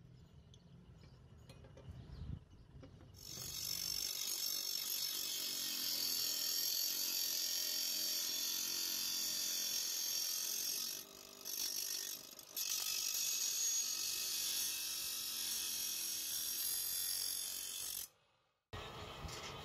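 Motor-driven grinding wheel grinding the edge of a steel sheet: a steady, high hiss starting about three seconds in, easing off twice briefly around the middle as the metal comes away from the wheel, then cutting off suddenly near the end.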